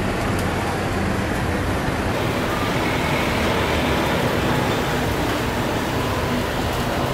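Steady aircraft engine noise with an even low hum, its tone shifting slightly about two seconds in.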